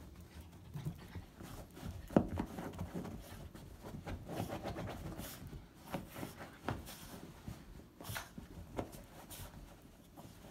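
Small dog rolling and rubbing itself on a fleece blanket on a couch, still damp from a bath: on-and-off soft rustling and scuffing, with one sharp click about two seconds in.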